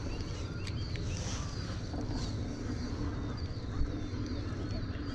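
Small birds chirping now and then over a steady low hum, with a single knock about four seconds in.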